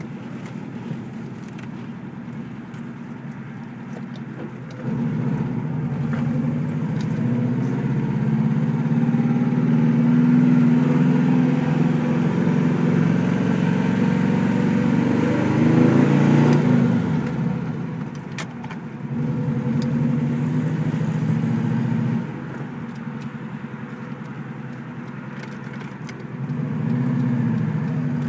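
Saab 96's V4 engine heard from inside the cabin while driving, its note rising and falling several times: it pulls under throttle, then drops back to idle when the gas is lifted and the freewheel disengages the engine from the drive. The engine is louder from about five seconds in, with a climbing note a little past halfway, then quieter for a few seconds before picking up again near the end.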